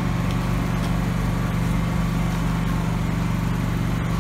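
Steady drone of a small engine running at a constant idle-like speed, with a few faint light clicks.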